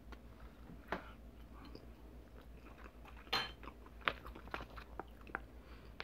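A person quietly chewing a mouthful of tuna and rice, with a few short clicks and crackles from the fork and the plastic food pouch, the loudest about three seconds in.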